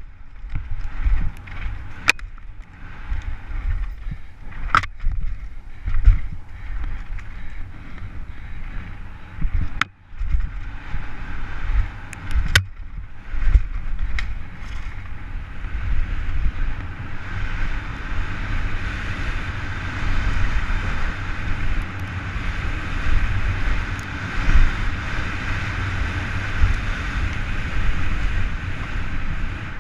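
Downhill mountain bike ridden fast down a dry dirt trail, heard from a helmet camera: wind buffeting the microphone with a heavy rumble, tyres hissing on the dirt, and sharp knocks and rattles from the bike over roots and rocks, most of them in the first half. The second half is a steadier rush of tyre and wind noise.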